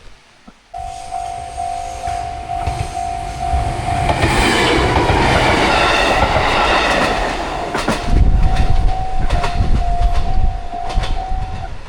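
A railway level-crossing alarm starts about a second in with a steady repeated electronic ding. An Iida Line train then passes over the crossing with a loud rush and rumble, followed by wheels clattering over the rail joints. The alarm keeps dinging under the train and cuts off near the end.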